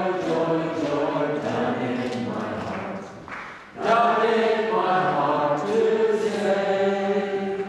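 Voices singing a slow, chant-like hymn with long-held notes, pausing briefly for breath a little past three seconds in.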